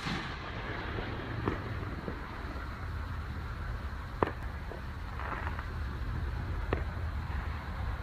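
Neighbourhood fireworks going off: several separate bangs and cracks, the sharpest about four seconds in and again near seven seconds, over a steady low rumble.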